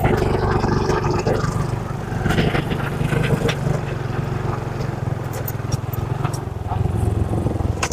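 Motorcycle engine running steadily while riding over a rough road, with scattered clattering knocks.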